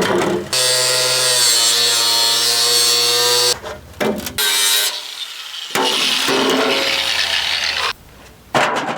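Power cutting tool running and cutting through scrap metal in two runs, the first about three seconds long with a steady whine under a hiss, the second about two seconds long, with short knocks between them.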